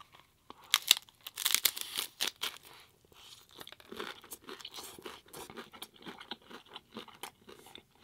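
A hard-shell corn taco being bitten into and chewed close to the microphone: a few loud, sharp crunches about a second in as the shell breaks, a dense run of crackling, then steadier, quieter crunchy chewing.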